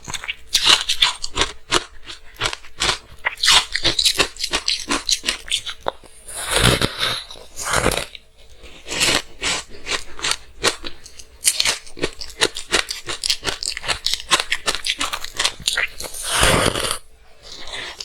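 Frozen matcha green tea ice being bitten and chewed close to the microphone: rapid sharp crunches and crackles, with two longer, denser bursts of crunching, one about seven seconds in and one near the end.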